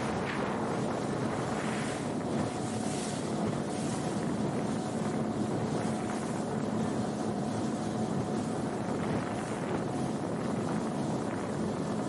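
Small fishing boat running steadily at speed, its motor humming under the rush of water and spray along the hull, with wind buffeting the microphone now and then.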